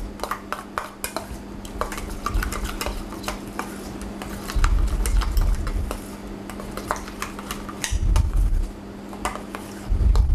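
A metal spoon stirring a thick mayonnaise-based sauce in a small stainless steel bowl, clinking and scraping quickly against the sides. A few dull low thumps come in about halfway through and again near the end.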